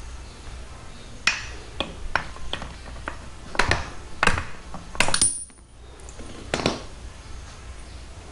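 Small metal motorcycle parts and tools clinking and knocking as they are handled and set down on a workbench, a dozen or so sharp separate strikes, one leaving a short high ring.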